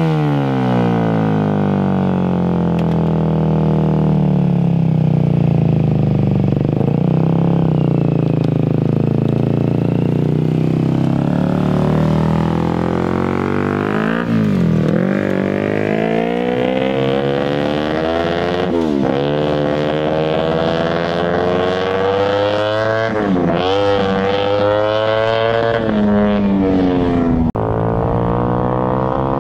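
Kawasaki Ninja 250 parallel-twin motorcycle engine in an off-road shifter buggy, running through an aftermarket exhaust. The engine revs up and shifts up several times as the buggy accelerates away, each rise in pitch ending in a sudden drop.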